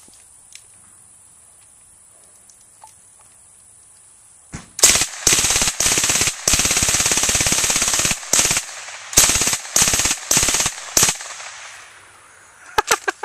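Automatic firearm firing in full-auto bursts, starting about four and a half seconds in: several short bursts and one long burst of nearly two seconds.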